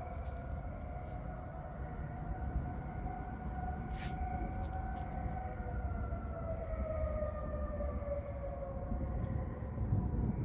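Outdoor tornado warning sirens sounding the attack signal instead of the steady alert tone: several siren tones slowly drifting in pitch over a low rumble, with a single click about four seconds in.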